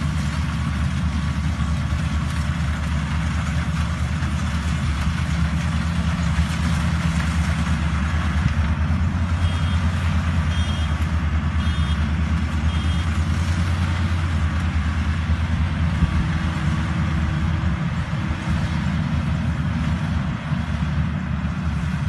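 Kubota engine-driven rice thresher running steadily: a low engine hum with a noisy rush over it.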